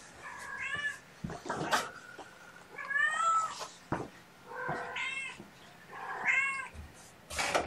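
Mother cat meowing repeatedly: about four short meows with a rise and fall in pitch, roughly one every second and a half.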